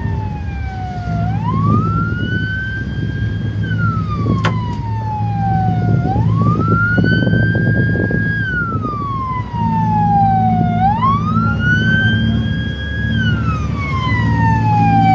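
A coast guard patrol boat's siren wails, climbing quickly, holding, then sliding slowly down, about once every five seconds. Under it runs the steady low hum of a boat engine.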